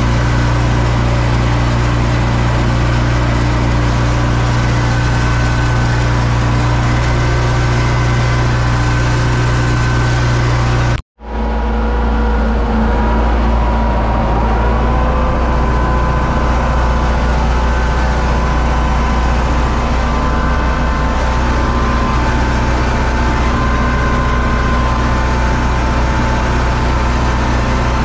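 UTB Universal U650 tractor's four-cylinder diesel engine running steadily under load while pulling a planter, heard from inside the cab. The sound cuts out completely for a moment about eleven seconds in, then carries on the same.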